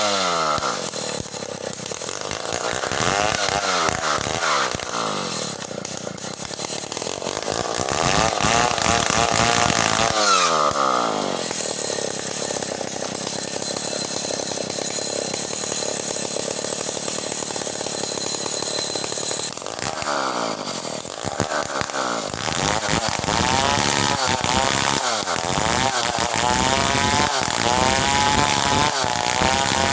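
Stihl 070 two-stroke chainsaw sawing merbau hardwood, its engine revving up and dropping back again and again, with a longer steady stretch at high speed in the middle.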